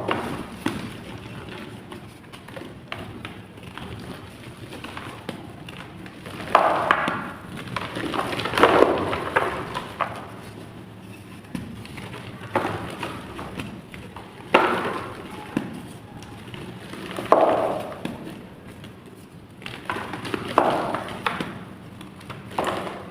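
Blocks of chalk clay being crushed and crumbling: a series of crunchy crumbles, a loud one every two to three seconds, with soft crackling between them.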